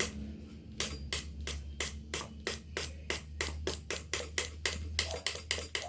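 Bench-tested Mazda 3 fuel injector clicking as its solenoid is pulsed on and off with 12 volts, about three or four even clicks a second, each pulse opening it to spray carb cleaner. A steady low hum runs underneath.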